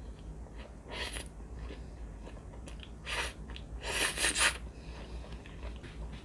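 Close-up eating sounds of rose Shinramyun instant noodles: short noisy slurps about a second in and around three seconds, and a longer, louder slurp around four seconds, with chewing in between.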